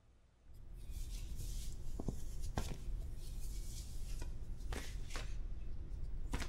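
Clothes rustling and fabric being handled as someone gets dressed, starting about half a second in, with a few light clicks and taps among the rustling.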